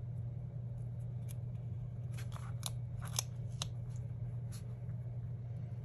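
Small sharp clicks and crinkles of a paper sticker being handled with metal tweezers on a planner page, a quick cluster of them in the middle, over a steady low hum.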